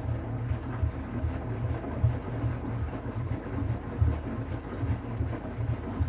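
Bosch front-loading washing machine drum turning in an empty-drum cleaning wash, water and foam sloshing inside, with an uneven deep rumble rising and falling as the water drops in the drum.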